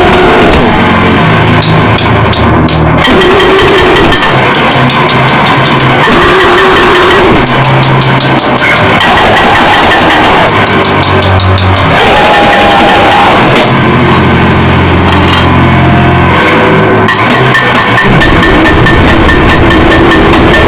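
Harsh noise music: loud, dense distorted noise filling the whole range. Its texture switches abruptly every second or two, between low droning blocks and rapid crackling clicks.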